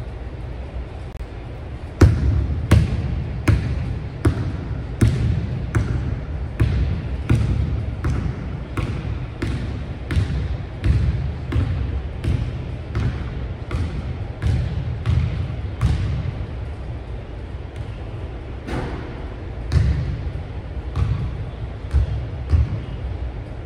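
A basketball being dribbled on a hardwood gym floor: a steady run of bounces, about three every two seconds, starting about two seconds in. Each bounce echoes in the large, empty gymnasium.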